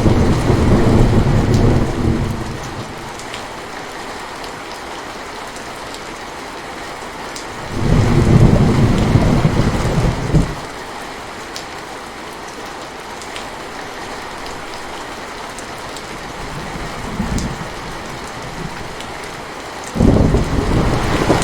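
Steady rain with rolling thunder: loud rumbles at the start, again about eight seconds in, a faint one near seventeen seconds, and another near the end.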